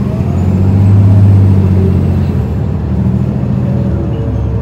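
Cabin running sound of an Isuzu Erga QKG-LV234L3 city bus under way, its four-cylinder diesel engine droning steadily. The drone swells about a second in, then eases off a little.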